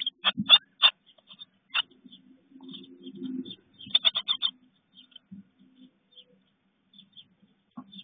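Tit nestlings in a nest box calling in bursts of rapid short chirps, once at the start and again about four seconds in, with a low, softer rustle between the bursts.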